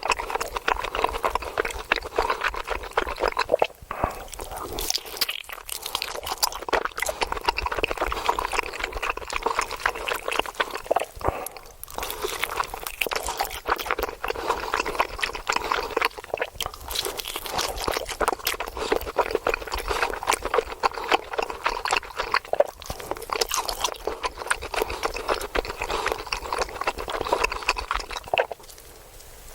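Steak sizzling in a hot pan: a dense, continuous crackle of fat and juices spitting.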